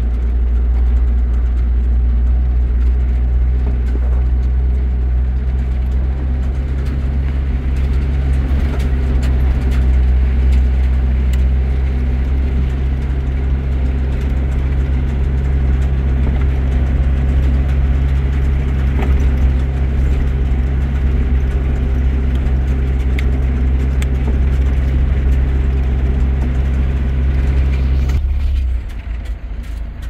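An engine running steadily with a low, even drone, which drops away sharply about a second and a half before the end.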